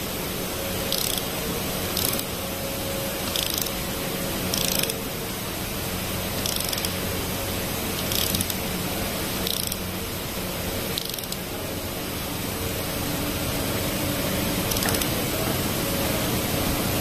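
Ratchet wrench on a socket extension tightening a bolt on a diesel cylinder head: short bursts of ratchet clicking every one to two seconds as the handle swings back, with a longer pause after about eleven seconds. A steady hiss of background noise runs underneath.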